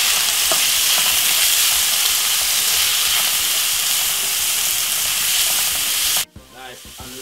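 Diced onion and bell peppers sizzling in hot oil in a non-stick frying pan, stirred and tossed with a spatula. The sizzle is steady, then cuts off suddenly near the end.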